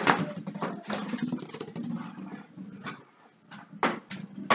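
Mini-hockey play with goalie gear on a wooden floor. There is a hard thump at the start, then about three seconds of scuffling under a low voice-like sound. Three short, sharp knocks follow near the end.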